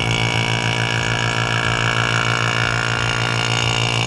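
Electric HVAC vacuum pump running steadily, a pulsing low hum with a high steady whine, as it pulls vacuum on a mini-split's refrigerant line set.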